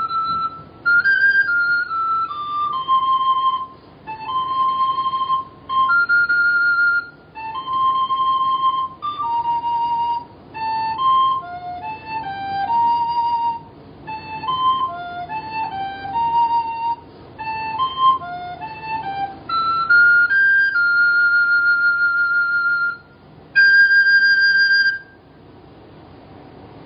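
Yamaha YRS-302BIII plastic soprano recorder playing a solo Christmas carol melody, one note at a time in short phrases with brief breaks. It ends on a long held note and a short higher note, then stops shortly before the end.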